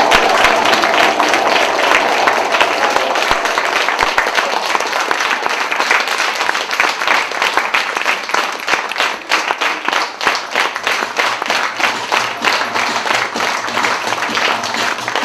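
Theatre audience applauding, a dense patter of many hands clapping, as the end of a piece of music fades out in the first couple of seconds.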